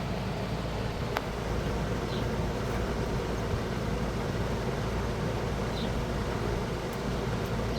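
Steady outdoor background noise with a low rumble, broken by one sharp click about a second in and a few faint high chirps.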